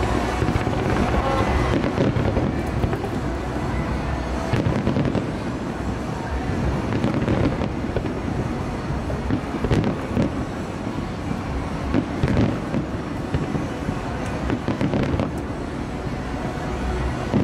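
Fireworks display: aerial shells bursting in a dense, continuous run of bangs and crackles, with several louder bangs in the second half.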